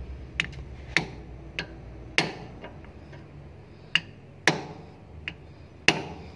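Ball-peen hammer striking a screwdriver used as a punch against a part on a Nichiyu FBR18 reach truck's differential housing: about nine sharp metal taps at uneven spacing, roughly one every half second, knocking the part loose.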